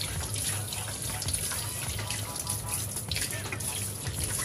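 Hot tap water running and splashing off a black air fryer part held under the stream, pouring into the soapy air fryer basket below. The rinse runs steadily throughout.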